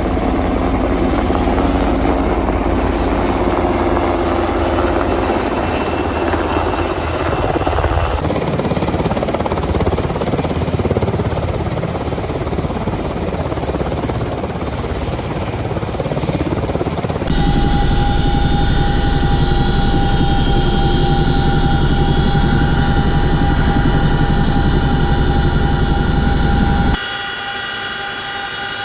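Loud, steady helicopter noise that changes character abruptly about 8, 17 and 27 seconds in. From about 17 seconds a steady high whine sits over a low rumble.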